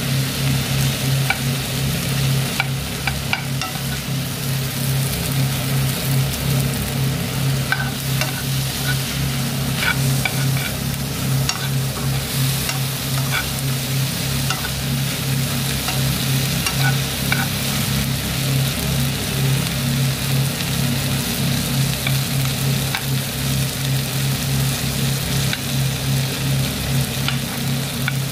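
Sliced onions, tomato and green chillies sizzling in a frying pan, stirred with a metal spoon that clicks and scrapes against the pan now and then. A steady low hum runs underneath.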